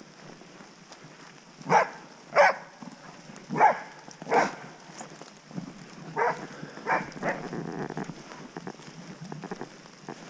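Hungarian vizsla barking: four loud, short barks in the first half, then three fainter ones a little later.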